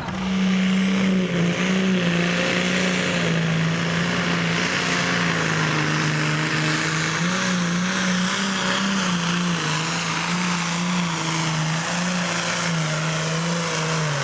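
Diesel engine of a blue Ford pulling tractor at full throttle under load as it drags the sled. The engine note holds high and wavers up and down in pitch throughout the pull.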